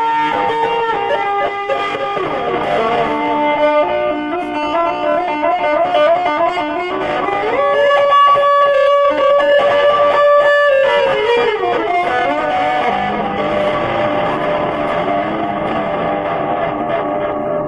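Music led by an electric guitar with effects and some distortion, playing a melodic line with a long held, bent note in the middle.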